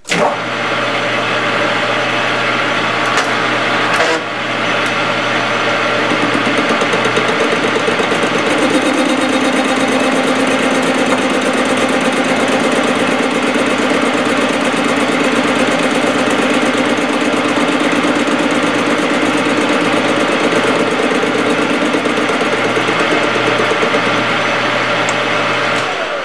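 Metal lathe running a turning cut on a spur gear held on a mandrel, the tool skimming the tops of a couple of its teeth. A steady motor hum with cutting noise, which grows fuller about eight seconds in.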